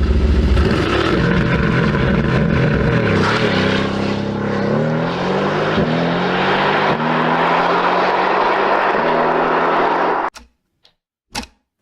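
Sports car engine accelerating hard through several quick upshifts, its pitch climbing and dropping back with each fast gear change. The sound cuts off abruptly near the end.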